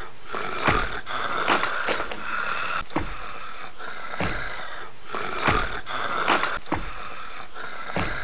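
A person snoring, one rasping breath after another.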